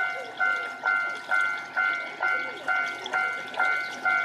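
Japanese level-crossing warning alarm ringing its electronic bell, a steady run of ding-ding strikes about two a second, each ringing out briefly before the next, warning that a train is coming.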